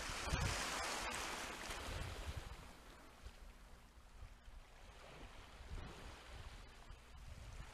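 Small waves washing up a concrete seawall slope, loudest about the first second or two, then easing to a softer lapping.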